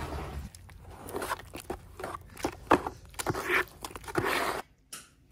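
Small trowel scraping and stirring tile adhesive in a plastic bucket: a run of irregular, gritty scrapes that stops about four and a half seconds in.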